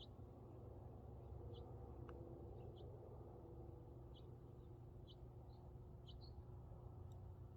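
Faint birds chirping: a dozen or so short, high chirps at irregular intervals over a low, steady outdoor rumble.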